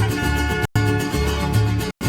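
Background music with plucked guitar over a pulsing bass, cutting out for an instant about two-thirds of a second in.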